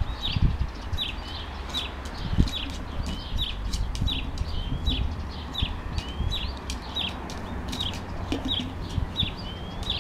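A small bird calling over and over: short high chirps about twice a second, now and then a rising note. Under it are a steady low rumble and a few dull thumps.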